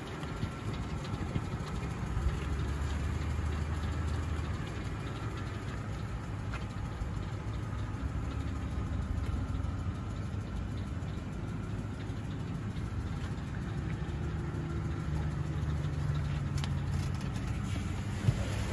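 A truck's engine idling steadily, a low even hum heard from inside the cab. A single sharp click sounds near the end.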